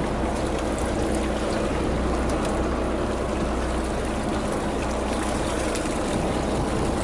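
Fishing boat's engine running steadily with a low hum, mixed with the wash of sea water around the hull.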